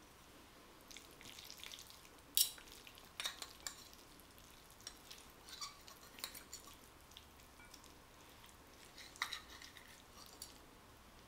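Metal fork and spoon twirling saucy spaghetti on a ceramic plate: soft wet stirring with scattered light clinks and scrapes of metal, the sharpest click about two seconds in.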